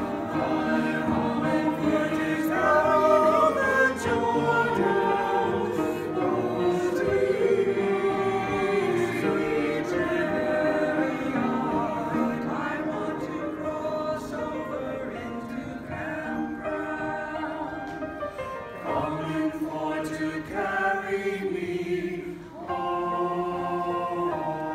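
Small mixed choir of men's and women's voices singing a hymn arrangement together, with a short break between phrases about three-quarters of the way through.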